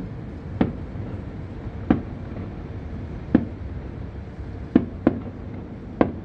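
Distant aerial fireworks shells bursting: six sharp bangs at uneven intervals, two of them close together about five seconds in, over a steady low background rumble.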